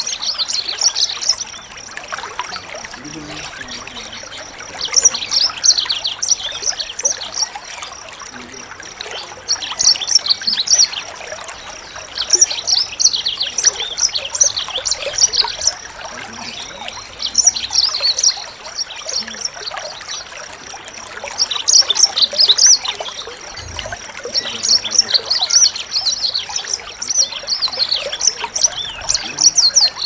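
A small songbird singing quick, high twittering phrases in repeated bursts of one to three seconds, a few seconds apart. A steady trickle of water and a constant thin high tone run beneath.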